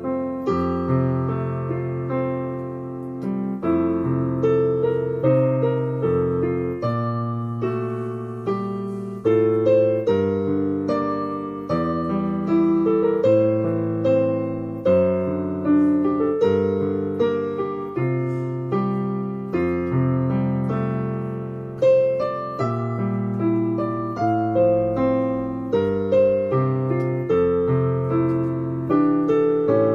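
Digital piano being played: a slow, even melody over held low notes, each note struck and then dying away.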